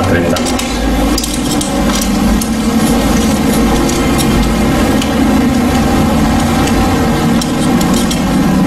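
A steady mechanical hum like an idling engine, holding several even tones throughout, with scattered light clicks from a screwdriver turning the terminal screw of a plastic light switch.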